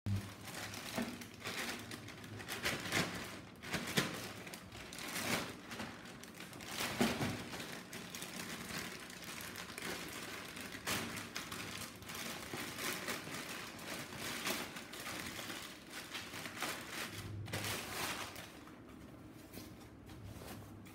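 Plastic courier mailer bag crinkling and rustling as it is handled and pulled open by hand, in irregular crackly bursts. It grows quieter near the end as the cardboard box is taken out.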